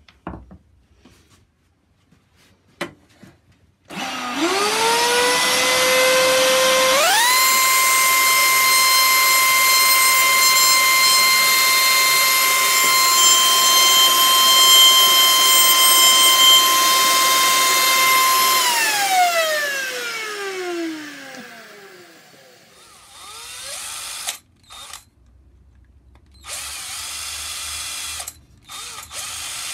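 A router in a router table spins up in two steps, runs with a steady high whine for about eleven seconds while a wooden dowel is held to its bit, then winds down slowly over a few seconds. Near the end a cordless drill gives several short bursts.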